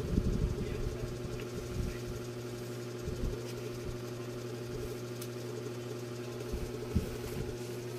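Steady low hum of a small motor running, with a few soft low thumps near the start, around three seconds in and about seven seconds in.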